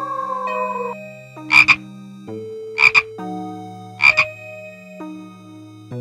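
A long, slightly falling wolf howl ends about a second in. It is followed by three short double croaks of a frog about a second and a quarter apart, over soft background music.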